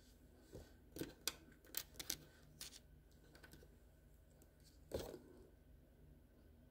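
Handling noise: a quick run of small clicks and taps about a second in, then a single louder knock about five seconds in.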